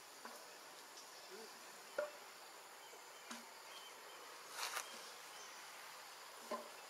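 Steady high drone of forest insects, with a sharp click about two seconds in, a brief rustle past the middle, and another click near the end.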